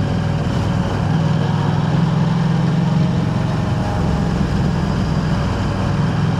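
KTM 890 Adventure R's parallel-twin engine running at steady revs through an Arrow aftermarket exhaust, a low, even note.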